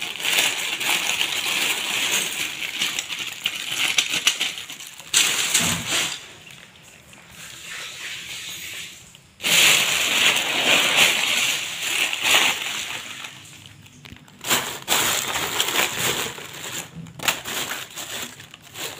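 Thin plastic bags rustling and crinkling as loose LEGO bricks inside are rummaged through, the bricks clattering against each other. It goes in long stretches, with a quieter spell about a third of the way in and a brief lull after the middle.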